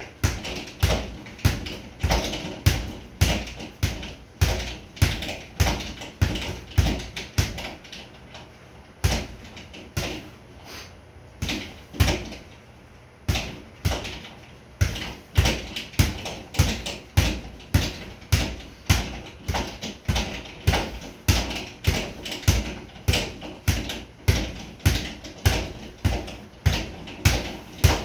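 Boxing gloves striking a sideways double-end (kangaroo) bag in quick, sharp punches, about two a second. For several seconds near the middle the hits thin out to a few softer ones before the steady punching resumes.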